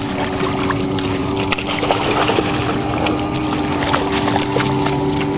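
A dog splashing through shallow lake water, with scattered small splashes over a steady low hum.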